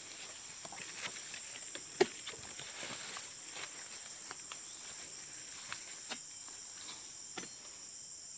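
Steady high-pitched insect drone, with scattered small knocks and rustles and one sharp knock about two seconds in.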